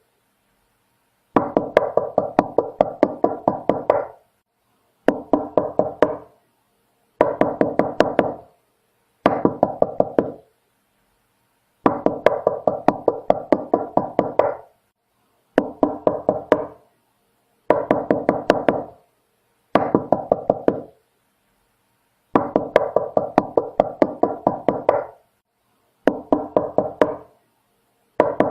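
Knocking on a door in repeated bouts of rapid knocks, about four or five a second, each bout lasting one to three seconds with a silent gap before the next.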